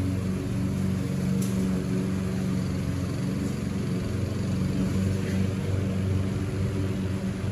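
Lawn mower engine running steadily, a continuous drone at a constant pitch.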